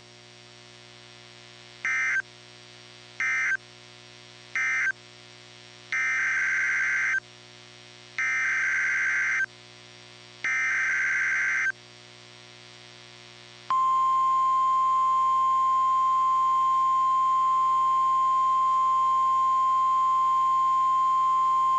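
NOAA Weather Radio Emergency Alert System signalling between tornado warnings. First come three short bursts of SAME digital data screech (the end-of-message code), then three longer SAME header bursts announcing the next warning. About two-thirds of the way through, the single steady 1050 Hz warning alarm tone begins and continues.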